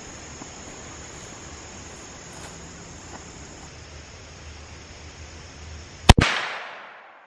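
A CVA Accura LR V2 inline muzzleloader fires a single shot about six seconds in. Its sharp report trails off in echo over about a second. Before the shot there is only a faint, steady outdoor background hiss.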